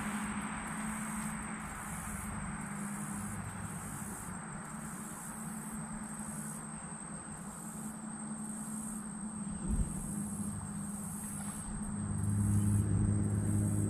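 Insects in the shoreline trees chirping in a steady pulse a little under twice a second, over a soft hiss of wind and water. A short knock comes just before the end, and a low hum rises near the end.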